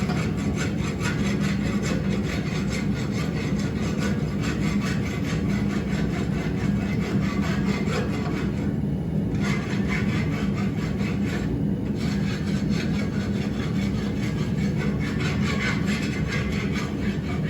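A hand rasp filing hot steel tong reins in repeated scraping strokes, hot rasping to clean up the forged surface, with brief pauses about nine and twelve seconds in. A steady low hum runs underneath.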